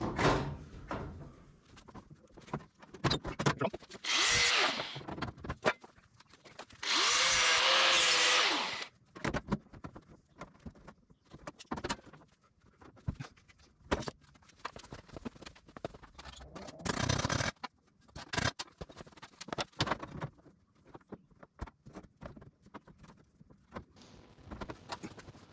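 Bodywork in a workshop: scattered clicks and knocks of hand tools on sheet metal, with a power tool running briefly about four seconds in and again for about two seconds a few seconds later.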